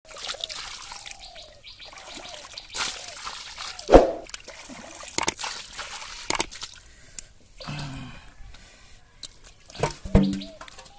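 Muddy water scooped with a plastic mug and poured out, trickling and splashing, with several sharp splashes as the mug strikes the water, the loudest about four seconds in.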